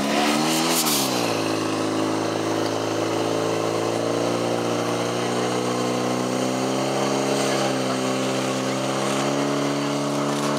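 Portable fire pump's engine running hard. Its pitch dips and climbs again in the first second, then settles into a steady note that slowly rises a little as the pump drives water out through the hoses to the nozzles.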